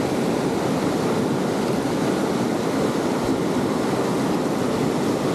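Swift river current rushing steadily over rocks, a constant roar of whitewater.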